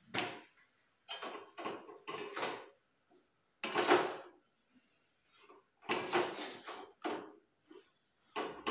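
A spatula stirring and scraping bottle gourd pieces in a stainless steel kadhai, a run of irregular scrapes and clanks, the loudest about four seconds in. The gourd is being cooked in the masala before any water goes in.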